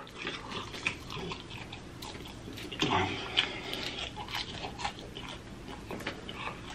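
Close-miked wet chewing and lip-smacking on a sauce-covered chicken wing, with scattered sticky clicks as fingers pull the meat off the bone.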